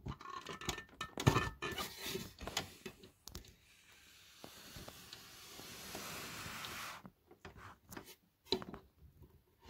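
Small clicks and knocks of a hand turning and handling a rusty metal shaft inside a Philips record player mechanism, with a steady hiss for about three seconds midway.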